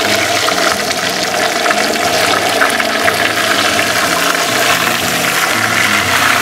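Whole bass frying in hot oil in a pan on a propane camp stove: a steady sizzle with dense crackling and snapping as the moisture in the fish cooks out.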